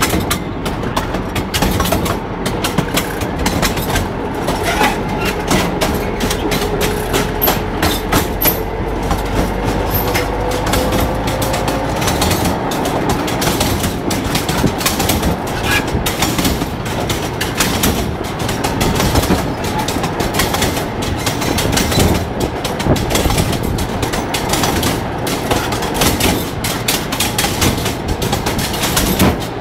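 Wheels of a rail draisine clattering over the track as it rides along: a dense, steady run of knocks and rattles over a rumble. A faint tone rises slowly through the first dozen seconds.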